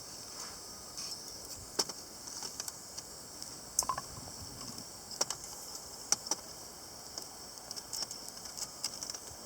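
Wood fire in a charcoal-starter chimney crackling: irregular sharp pops and snaps over a steady high hiss.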